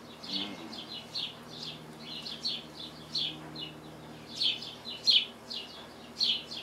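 Small songbird chirping over and over: short, downward-sliding high chirps, about three a second, growing louder near the end.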